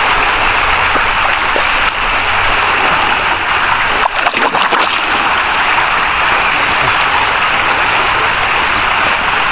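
Flowing water rushing steadily, with a faint steady high whine above it. A brief cluster of clicks and knocks comes about four seconds in.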